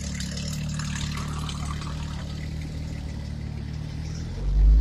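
Porsche 911 GTS flat-six engine running at low speed as the car rolls slowly past close by, with a loud low rumble swelling near the end.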